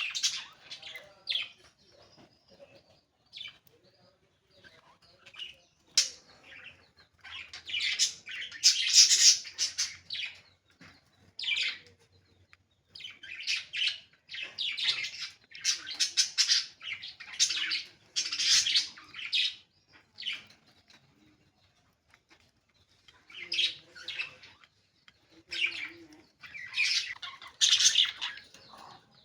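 Pet budgerigars chirping and chattering in bursts of high, quick calls, with a short lull about two-thirds of the way through.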